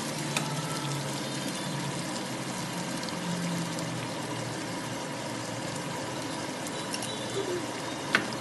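Sambal and sauce sizzling steadily in a hot frying pan as dark sauce is poured in from a bottle, with a sharp click near the end.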